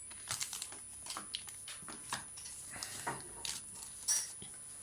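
Handling of a Pokémon booster pack and its cards: irregular soft rustles and clicks as the cards are sorted through.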